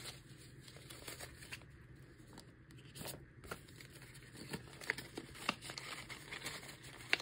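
Paper banknotes (US dollar bills) rustling and crinkling as they are handled, folded and slid into a paper envelope, with scattered soft paper clicks and a sharper tick just before the end.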